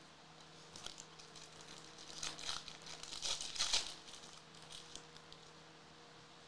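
Foil trading-card pack wrapper crinkling in the hands, with cards rustling as they are shuffled, in clusters of short rustles that are loudest in the middle and die away to a few faint ticks.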